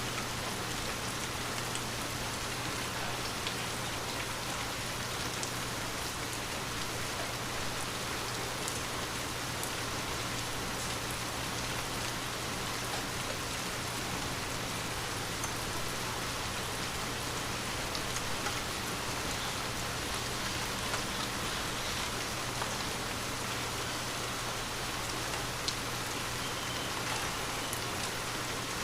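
Light rain falling steadily, an even hiss with scattered drops ticking.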